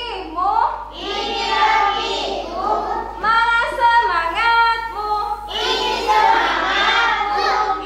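Young children and women singing a song together as a group, with held, gliding notes and fuller stretches where many voices join in.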